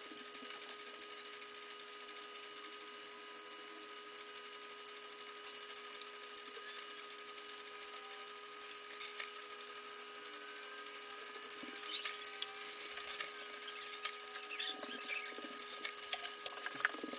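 LEGO Mindstorms NXT servo motors and gears of a SCARA robotic arm running as it plots a drawing, played back sped up: a dense, rapid ticking over a steady whine.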